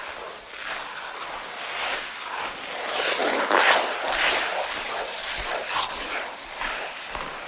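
Ice skate blades scraping and gliding over ice in a run of swelling strokes, loudest about three and a half seconds in.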